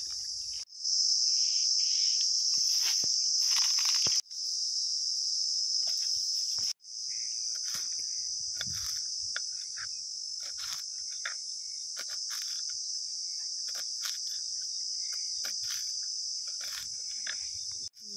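A steady, high-pitched chorus of insects buzzing, which drops out for an instant a few times. In the second half, light taps of a small knife chopping greens on a wooden board.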